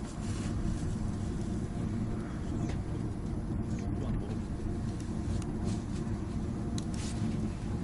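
A steady low engine-like rumble with a few faint ticks.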